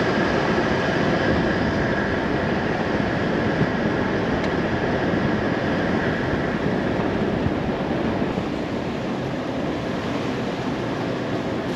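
Steady road and engine noise of a car being driven, heard from inside the cabin.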